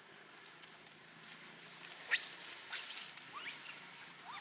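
Monkey squeals: two loud, sharp squeaks that sweep quickly upward in pitch about two and three seconds in, followed by a few fainter rising squeaks.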